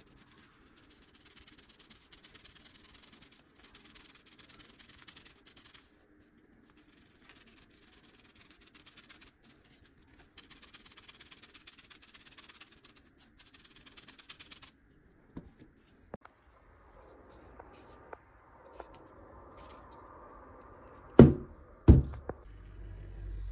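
Gloved fingers rubbing a white paste into the rough face of a rowan wood section, a scratchy rubbing in several spells. Near the end, two loud knocks about a second apart.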